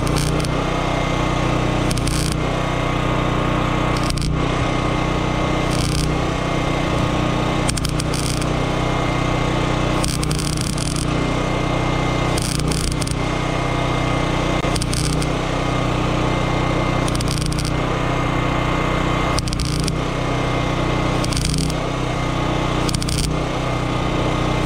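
MIG welding gun laying a filler bead on a steel fence pipe joint: a steady arc crackle, with a sharper hiss swelling about every two seconds, over a steady engine drone.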